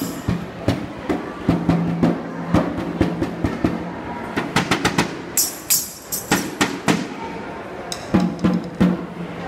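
Wall-mounted drums struck irregularly, single hits with a quick flurry of strikes around the middle and a brief bright jingle along with it.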